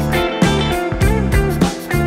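Background music led by a guitar, with bent notes over a bass line.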